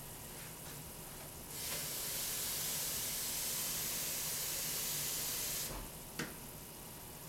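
A steady hiss that starts abruptly about a second and a half in and cuts off about four seconds later, followed by a single click.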